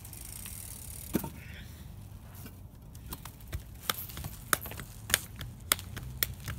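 Sharp slaps of hands patting a cinder-block wall, about half a dozen, one about a second in and the rest coming every half second or so in the second half, as a BMX rider holds the bike up on its back wheel against the wall.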